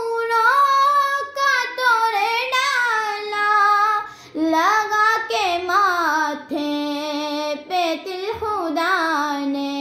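A young girl singing an Urdu naat with no accompaniment: long held notes with wavering ornaments, broken by short pauses for breath about four and eight seconds in.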